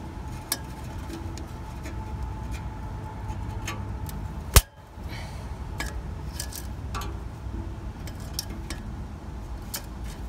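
Scattered light metallic clicks and clinks while the strap holding a new shock absorber compressed is being cut, with one sharp, loud snap a little under halfway through.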